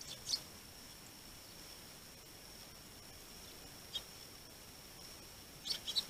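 Eurasian tree sparrows giving short, high chirps: one near the start, one about four seconds in, and a quick run of three near the end, over a faint steady high whine.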